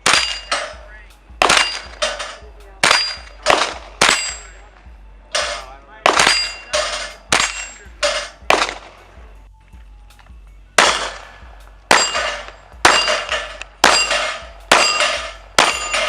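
Pistol fire at a range: steady strings of shots, about two a second, each with a short metallic ring after it, with a pause of about two seconds a little past the middle.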